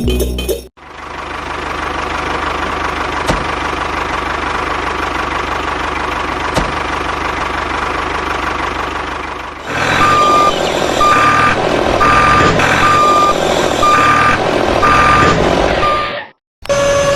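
A small engine running steadily with a low throb; about ten seconds in, a reversing alarm starts beeping over it, repeating roughly every 0.7 s, until it cuts off just before the end.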